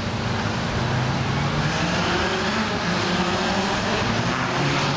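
A motor vehicle engine running steadily, with outdoor background noise.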